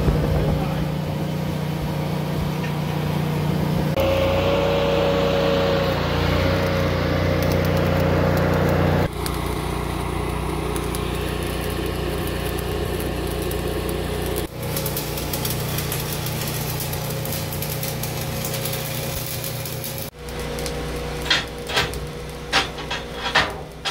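Small engine running steadily with a droning hum. Its character shifts abruptly several times. Near the end come a handful of sharp knocks.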